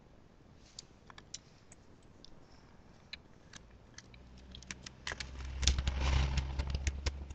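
Small crackling clicks as a Kinder Surprise egg's plastic capsule and wrapping are handled and opened. A louder rustle with a low rumble comes about five to seven seconds in.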